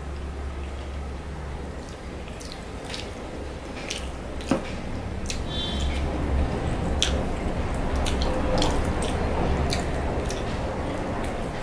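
Wet squelching of rice and egg curry being mixed by hand, then biting and chewing with many short, sharp wet mouth clicks, the loudest about four and a half seconds in. A steady low hum runs underneath.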